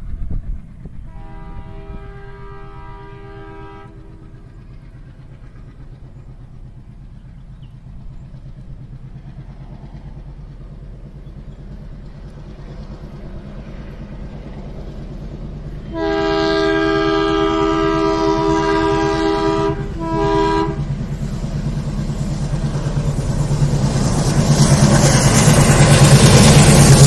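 WDM-3A diesel-electric locomotive (ALCO 16-cylinder engine) approaching with a passenger train. Its multi-tone air horn sounds for about three seconds a second in, then again louder and longer about two-thirds of the way through, with a short toot straight after. The engine's rumble grows steadily louder as it comes close at the end.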